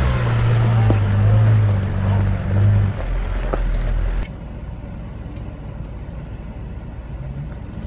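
Four-wheel-drive's engine labouring and revving in swells as its tyre crawls up over a rock step, heard from beside the vehicle. About four seconds in it cuts abruptly to a quieter, steady engine drone from inside a following vehicle.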